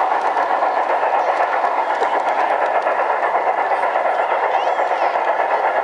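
G-scale model freight train cars rolling past close by: a steady, rapid clatter of wheels over the track.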